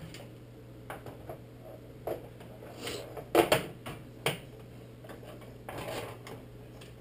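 Sharp plastic clicks and knocks from a microwave door being pried apart by hand, a close pair of the loudest a little past halfway and a few lighter ones around them, over a low steady hum.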